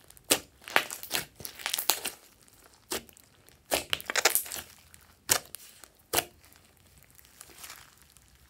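Hands squeezing and kneading glossy slime with small foam beads mixed through it, giving irregular clicking and crackling pops as it is pressed and stretched. The pops come thick and fast for about six seconds, then thin out and fade.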